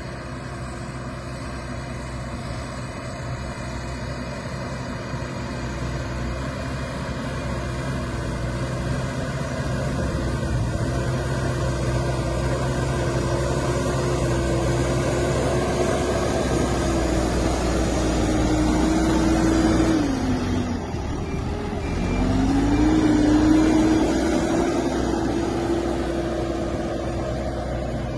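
Hidromek 102B backhoe loader's diesel engine running steadily under load as it pushes material. About three quarters of the way through, its pitch drops and then climbs back up as the revs recover.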